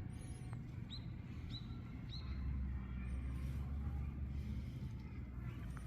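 Small birds chirping: a few short, quick chirps in the first couple of seconds, over a steady low rumble that swells for a couple of seconds in the middle.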